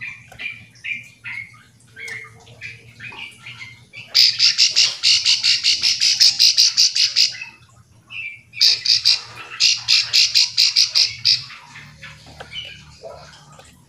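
Plain prinia (ciblek sawah) calling to its companions: scattered short chirps, then a fast run of repeated high notes lasting about three seconds, and after a short pause a second run of about two and a half seconds.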